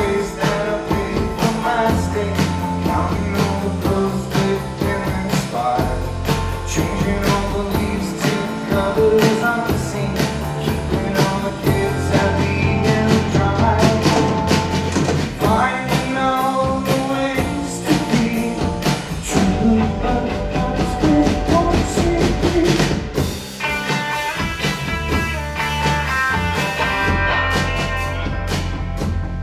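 Live rock band playing: electric bass, drum kit and electric guitar, with singing.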